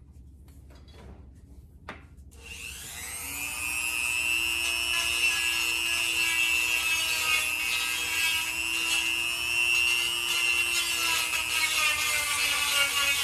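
Dremel rotary tool switched on about two seconds in, winding up to a steady high whine as it grinds and smooths the edge of a drilled water-pump hole in an aluminum engine plate.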